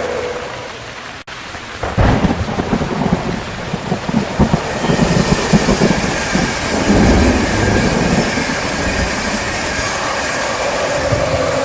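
Steady heavy rain with a long rolling rumble of thunder that breaks in sharply about two seconds in and goes on for several seconds before easing.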